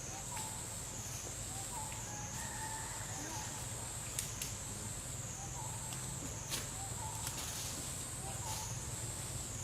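Steady high-pitched insect chorus that wavers up and down about once a second, with a few faint chirps and two sharp clicks midway.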